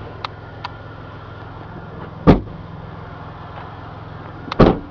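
Two doors of a 2002 Toyota Tacoma crew cab pickup shutting about two seconds apart, each with a sharp thump. A small click comes just before the second thump. A steady low hum runs underneath.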